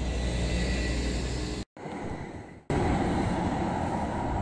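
Electric tram running along its track: a steady hum with a faint whine. After a sudden break of about a second, an Alstom TFS tram comes past close by with louder running noise.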